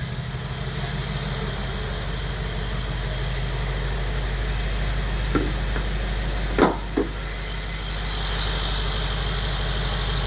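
A Mercedes-AMG G63's twin-turbo V8 idling steadily in sport mode. About six and a half seconds in, two sharp clacks come as the bonnet is released and lifted, and the engine then sounds a little louder and hissier.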